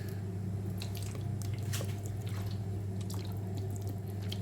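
Liquid dripping and splashing into a pot of soup in scattered small drops, over a steady low hum.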